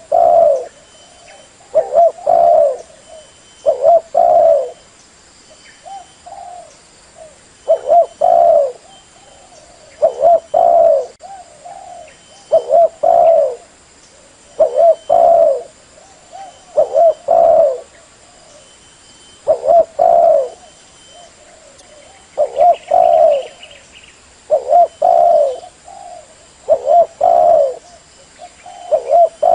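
Spotted dove cooing: a decoy bird's call, used to lure wild doves, repeating in short phrases of a few coos about every two seconds.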